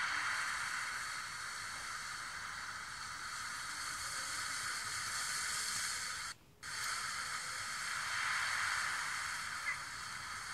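Steady hissing background noise with a faint high whine, cutting out for a moment about six seconds in; a small click near the end.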